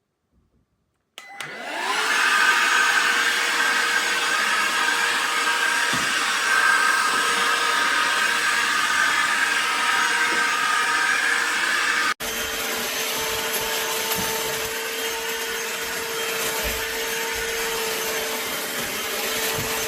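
Bosch UniversalVac 18 cordless vacuum cleaner switched on about a second in: the motor spins up and then runs with a steady whir. Around two-thirds of the way through, the sound changes abruptly and goes on a little quieter with a different tone.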